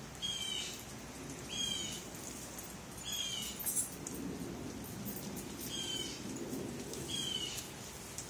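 A bird calling repeatedly: five short, high calls, each falling in pitch, about one every second and a half with a longer gap in the middle.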